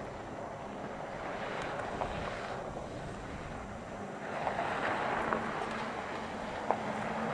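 Mercedes-Benz GLE SUV driving on a gravel road: a steady rush of tyre and wind noise with a faint low engine hum. It grows louder about four seconds in as the SUV comes closer.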